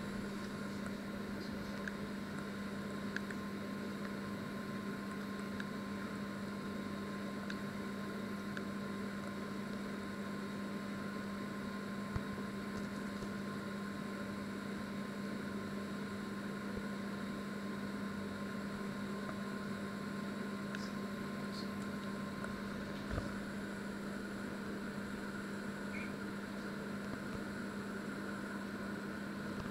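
Panasonic inverter microwave oven running with a steady hum, with a couple of faint clicks.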